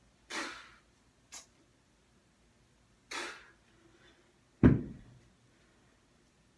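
Three short, forceful exhalations during kettlebell swings, then, about two-thirds of the way in, a single heavy thud, the loudest sound, as the kettlebell is set down on the floor.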